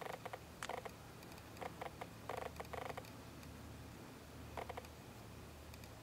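Short raspy insect sounds come in brief bursts: a couple in the first second, a cluster of several around two to three seconds in, and one more near the end. A low steady hum runs under them.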